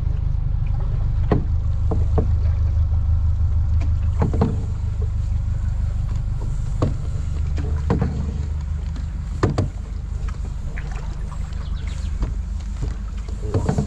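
Canoe being paddled, with a steady low rumble and an occasional sharp knock of the wooden paddles against the canoe, about seven in all at uneven gaps.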